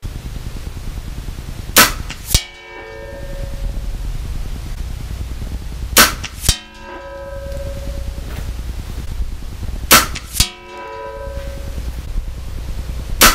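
Sig Sauer ASP20 .22 gas-piston break-barrel air rifle fired three times, about four seconds apart. Each crack is followed about half a second later by the pellet striking a steel target 100 yards downrange with a ringing clang that dies away over about a second. A fourth shot cracks near the end, over a steady low rumble.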